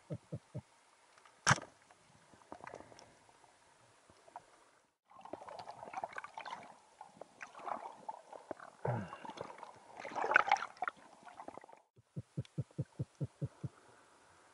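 Underwater sounds during a spearfishing dive: a few quick clicks, then a single sharp crack about a second and a half in as the speargun fires at the fish. After a break comes several seconds of churning, gurgling water noise, and near the end a fast, even run of about a dozen clicks.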